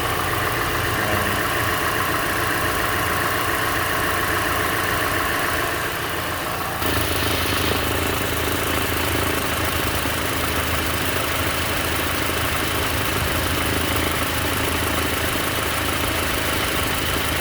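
Mazda CX-5's engine idling steadily with the air conditioning compressor engaged. About seven seconds in the sound shifts abruptly in tone, then runs on steadily.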